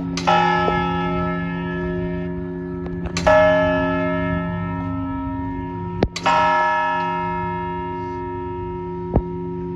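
Clock tower bell striking the hour: three strokes about three seconds apart, each ringing out and fading over a lingering low hum, with a couple of sharp clicks near the end.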